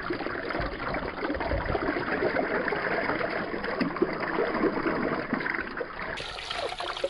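Water poured steadily from a plastic jug onto a singed turkey carcass in a metal basin, splashing off the skin as the bird is rinsed.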